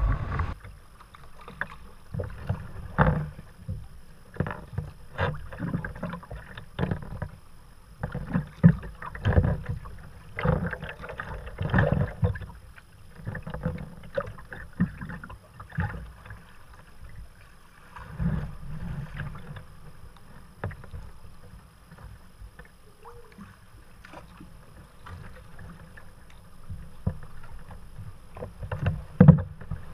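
Kayak paddling: paddle blades dipping and splashing at an uneven pace, with water slapping the hull over a low rumble. The strokes thin out and go quieter for a stretch past the middle.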